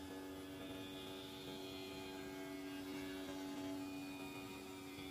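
CNC gasket cutter's pneumatic oscillating knife running as it cuts a rubber sheet, a steady buzzing hum.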